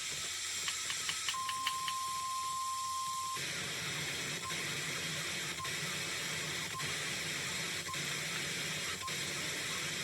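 Emergency Alert System broadcast. A few short clicks are followed by a single steady alert tone lasting about two seconds, which cuts off sharply. A steady hiss then carries on, with a short beep about once a second.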